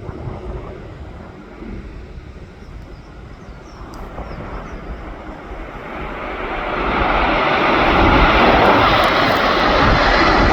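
Airliner engines growing steadily louder as the aircraft comes closer, loudest over the last few seconds, with wind rumbling on the phone's microphone throughout.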